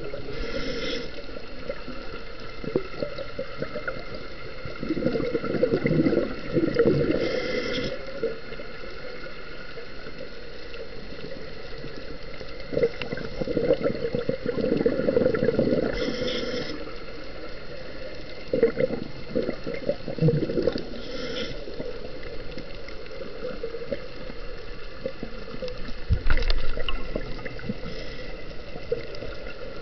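Scuba regulator breathing heard underwater: four gurgling rushes of exhaled bubbles, each followed by a short hiss of the diver drawing a breath, in a slow cycle.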